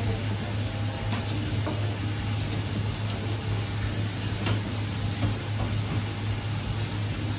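Water spraying steadily from a hose nozzle onto a cutting board while small fish are scaled with a hand fish scaler, with a few light scraping clicks. A steady low hum runs underneath.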